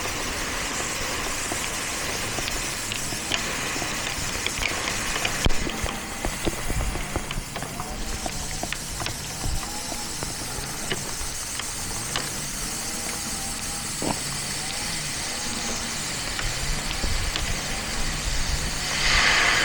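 Pressurised well water spraying out of a freshly cut 1-inch PVC line as a steady hiss, swelling louder near the end. The flow keeps going because the well pump is still running.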